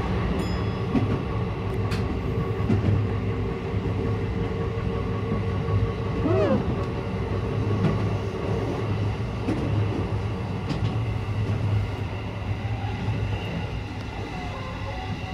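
Limited express electric train running, heard from inside the carriage: a steady rumble with a few light clicks from the track and a brief wavering squeal a little past the middle.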